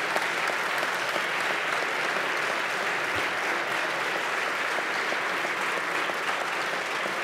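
Steady applause from a large seated audience of legislators, many hands clapping at once.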